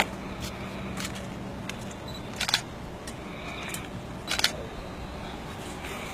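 A few sharp clicks and clacks at irregular intervals, some in quick clusters of two or three, over a faint steady outdoor background.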